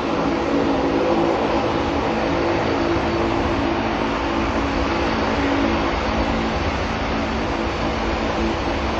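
Jet engines of a Boeing 747-200 freighter running: a loud, steady roar with several steady low tones in it.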